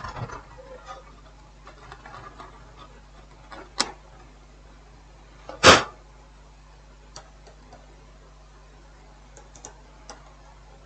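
Quiet workbench handling with scattered faint taps and ticks, one sharp tick a little before halfway and one short, louder burst of noise just past halfway.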